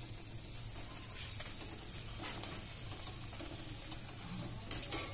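Crickets trilling steadily at a high pitch, over a low steady hum.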